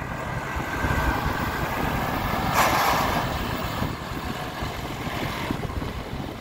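John Deere 5065E tractor's 3029H three-cylinder diesel engine running as the tractor drives past, getting louder to a peak about halfway through, then easing off.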